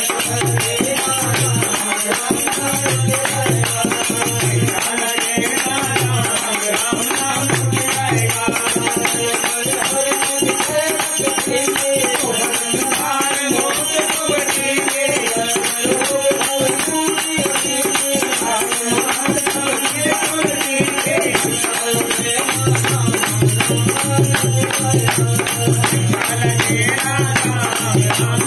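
Hindi devotional bhajan sung by a man, with harmonium accompaniment and steady rhythmic jingling from small hand percussion shaken in the singer's hands, plus hand claps keeping time.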